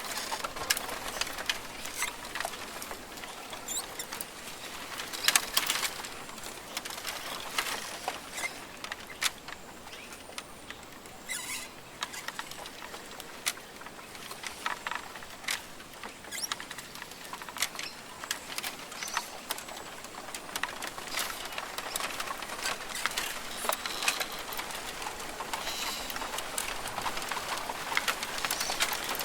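Rainforest ambience: an irregular patter of sharp ticks, like water drops falling on leaves, over a soft hiss. The ticks become denser near the end.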